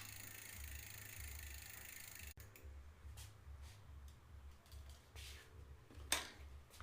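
Mechanical clicking from a 1990s bicycle's parts being worked. A steady hiss cuts off a little over two seconds in, then come a few faint clicks and one sharp click near the end.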